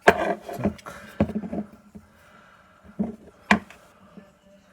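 A few separate sharp clicks and knocks of small metal parts of a car door check being handled and fitted back together, the loudest about three and a half seconds in.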